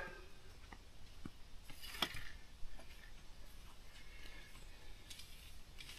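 Faint scattered clicks and knocks from a pop-up canopy's metal scissor frame being handled as its stiff legs are worked loose, the sharpest knock about two seconds in.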